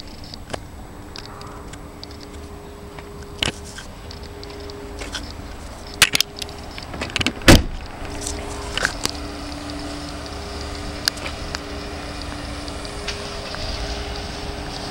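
Land Rover Discovery 2 car door shutting with a loud thump about seven and a half seconds in, with lighter knocks and clicks from handling before it, over a steady low rumble.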